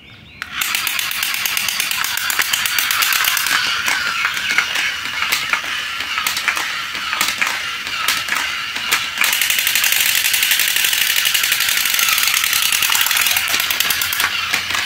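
Battery-operated crawling soldier toys firing their electronic machine-gun sound effects, a fast, loud rattle that starts suddenly about half a second in.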